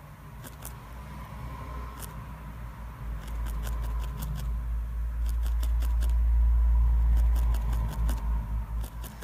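A felting needle repeatedly stabbing into wool on a felting pad, heard as a scatter of faint, irregular light clicks. Under it, a low rumble swells past the middle and then fades.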